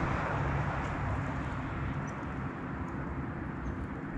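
Steady low outdoor background rumble with a hiss above it, even throughout with no distinct events.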